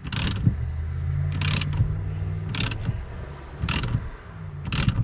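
Socket ratchet on a 5/8 socket turning the forcing screw of a steering wheel puller, clicking in a short burst on each return stroke, five strokes about a second apart, as the puller works the steering wheel loose from its shaft.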